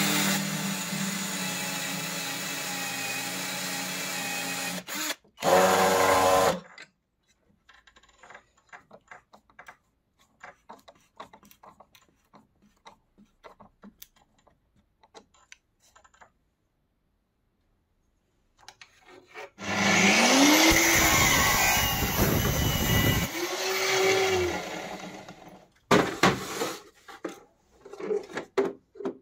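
Power drill boring a hole through plywood at a steady speed for about five seconds, then a short burst at higher, rising speed. Then faint scraping ticks of a hand-turned countersink in the wood, and later a motor runs again for about six seconds, its pitch rising and falling twice, followed by a few sharp clicks near the end.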